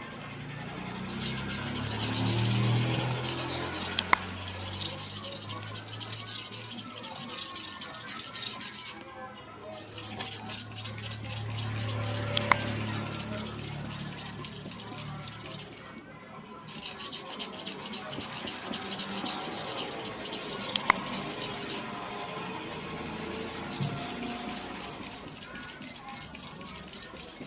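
Hair clipper blade being ground against an abrasive to sharpen it: a high-pitched rasping in long stretches of several seconds, stopping briefly three times.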